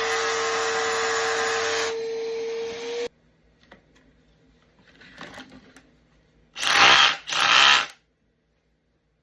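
12-volt cordless rotary hammer running in concrete with a steady motor whine, its noise thinning about two seconds in and stopping abruptly about a second later. Near the end, two short loud bursts of noise follow each other closely.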